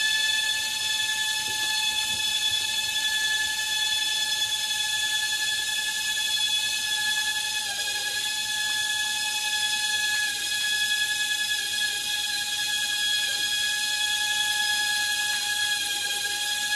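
Small electric motor of a Gakken Kaede Drone, a single-blade maple-seed-style model helicopter, spinning its one rotor blade in flight with a steady high whine, the pitch wavering slightly a few times.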